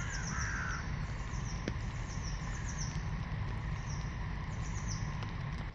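Crows cawing twice at the start, with small songbirds calling over and over in short, high, falling chirps, over a steady low rumble.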